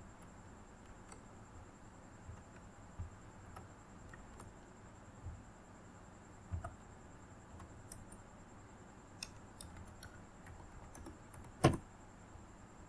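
Faint, scattered clicks of a computer keyboard and mouse, with one sharper, louder key press near the end.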